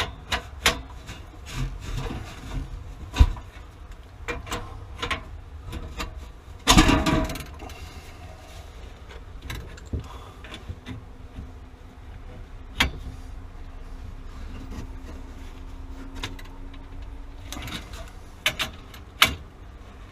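Hand work on threaded plumbing fittings: scattered knocks, clicks and rubbing of metal parts and tools, with a louder scraping rush about seven seconds in.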